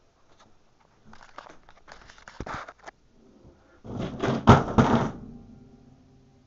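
Rustling and knocking handling noise in bursts, loudest about four to five seconds in.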